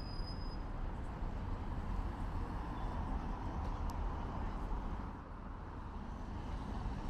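City street traffic: a steady rumble of passing cars, easing off a little about five seconds in.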